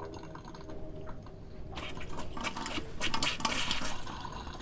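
Water from a galley tap splashing into a stainless steel sink. It starts just under two seconds in and grows stronger as water pressure comes through the boat's freshwater system.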